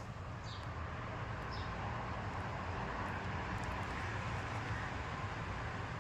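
Steady low outdoor background rumble, with two short faint high bird chirps in the first two seconds.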